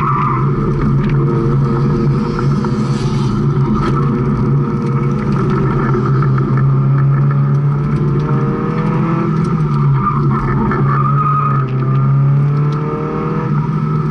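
Mazda Miata's four-cylinder engine driven hard on an autocross run, heard from inside the open cockpit, revs climbing and dropping as the driver accelerates and lifts. Tires squeal at times, around the start and again about eleven seconds in.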